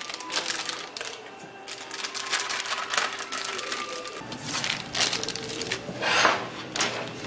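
Clear plastic piping bag crinkling and rustling as it is filled with paste and twisted closed, with light taps and scrapes of a silicone spatula on a stainless steel bowl. A louder rustle comes about six seconds in.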